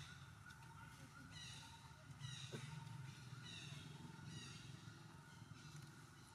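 Faint animal calls: several short, falling cries in a row, between about one and five seconds in, over a steady background hum.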